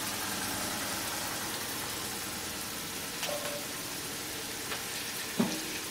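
Onion-paste masala frying in mustard oil in a kadai, a steady sizzle with ground spices and salt just added on top.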